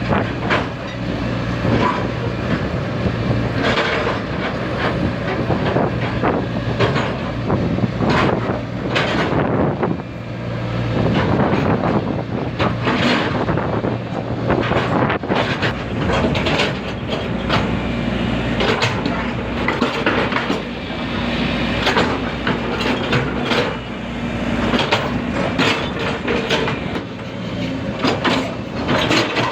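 Hydraulic excavator at work: its diesel engine runs steadily with a low hum while metal clanks and knocks come again and again from the bucket, boom and tracks.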